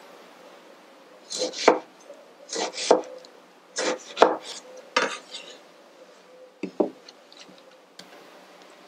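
Chef's knife slicing small tomatoes on a wooden cutting board: the blade cuts through and knocks on the board in short double strokes about once a second, stopping about seven seconds in.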